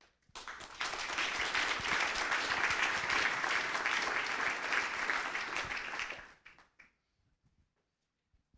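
An audience applauding, starting just after the beginning and dying away about six to seven seconds in.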